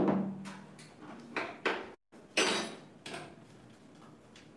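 Kitchen handling clatter: a sharp clunk right at the start, as of a glass jar set down on the counter, then a few lighter knocks and a rattle as a plastic blender lid is handled.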